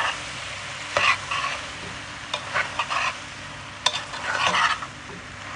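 Penne pasta and vegetables being stirred in a sizzling pan with a metal utensil. Scraping, clattering strokes come about once a second, with a sharp tap of metal on the pan a little before four seconds in.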